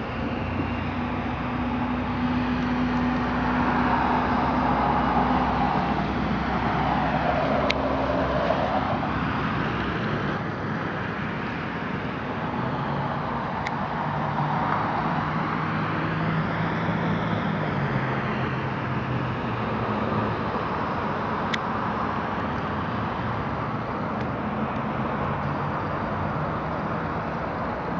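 Steady mechanical noise: an even hiss over a low hum, its tone sweeping slowly, with a few faint clicks.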